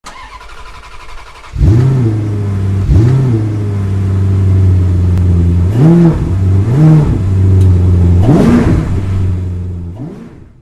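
Car engine idling steadily, blipped about six times, each blip a quick rise and fall in pitch; it fades out near the end.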